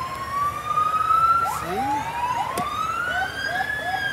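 Fire truck sirens wailing. A long tone rises, drops sharply about one and a half seconds in, then rises again and slowly falls, while a second siren gives a quick run of short rising whoops in the middle.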